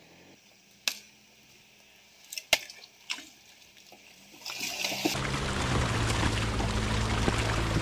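Quiet at first with a few faint clicks; then, about five seconds in, a steady wash of water noise over a low engine hum starts suddenly, as of a vehicle working through water or swamp mud.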